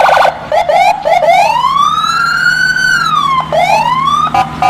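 Police car siren, loud: a fast pulsing tone at the start gives way to a slow wail rising and falling in pitch, with two siren tones crossing each other, then a choppy pulsing pattern returns near the end.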